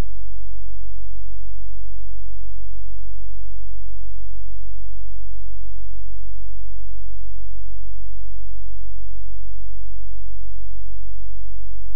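Loud, steady low-pitched electrical hum at about 50 Hz, unchanging throughout, with two faint clicks about four and a half and seven seconds in.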